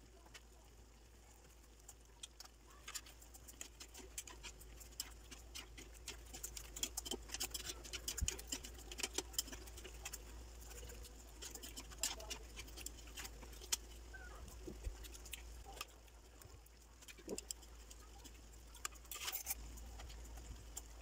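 Shrimp in a thick garlic-butter, tomato and Coca-Cola sauce simmering in a nonstick frying pan, giving faint scattered pops and crackles. A metal spoon clicks and scrapes against the pan as the shrimp are stirred, starting about two seconds in, busiest in the middle and again near the end.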